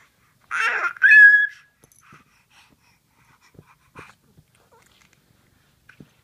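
Seven-month-old baby squealing: a raspy shriek about half a second in, then a loud, high-pitched squeal held briefly, followed by a few faint taps.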